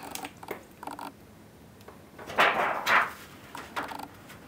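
Thin metal solder-paste stencil sheet being handled and laid flat over a small circuit board: a few light clicks, then two short scraping swishes about half a second apart near the middle.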